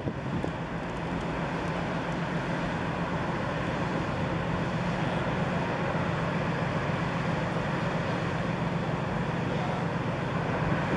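Outbound container ship's engines giving a steady low drone as it passes close by, over a constant haze of wind noise.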